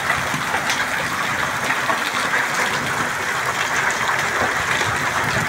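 Hail falling steadily: a dense, even patter of many small hailstones striking the grass and ground.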